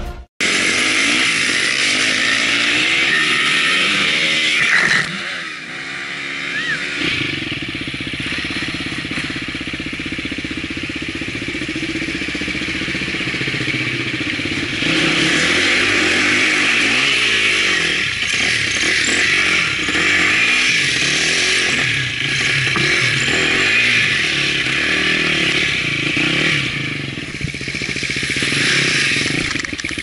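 Enduro dirt bike's engine running and revving up and down as it is ridden off-road, its pitch rising and falling repeatedly.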